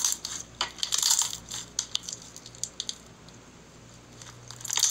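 Clear blue slime squeezed and pressed by hand, giving crackling, popping clicks that come in bursts near the start, about a second in and again near the end.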